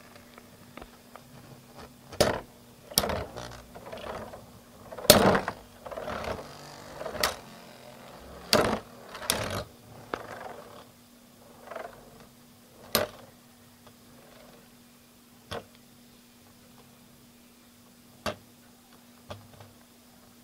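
Two Metal Fight Beyblades spinning against each other in a plastic stadium. Their metal wheels clash in sharp clacks, several in quick succession over the first ten seconds with the loudest about five seconds in, then single clacks a few seconds apart.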